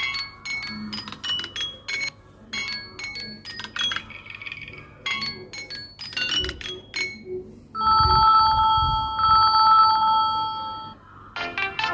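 Samsung Galaxy A12 ringtones playing. First comes a quick melody of short, sharp notes. From about eight seconds in there is a steady trilling two-note ring, like a telephone bell, for about three seconds. Near the end a new melody of quick notes starts.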